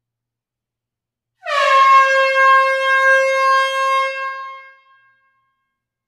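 A horn sound effect: one long, loud horn blast starting about a second and a half in. It drops slightly in pitch as it starts, holds one steady note for about three seconds, then fades out.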